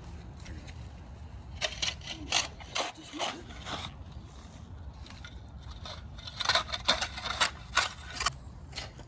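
Scraping strokes in two bursts, a handful of short sharp scrapes about two seconds in and again from about six to eight seconds, over a steady low rumble.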